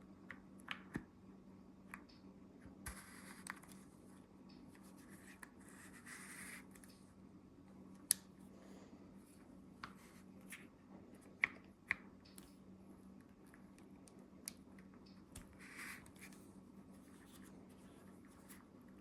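Scattered sharp clicks and soft scraping from handling a thermal riflescope and its detachable lens, as the lens is turned and fitted back onto the scope body, over a faint steady hum.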